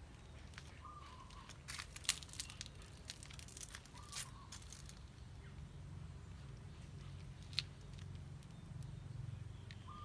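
Faint crackling and rustling of dry leaves on paving, with a cluster of sharp crackles a couple of seconds in and a single sharp one late on, over a steady low hum.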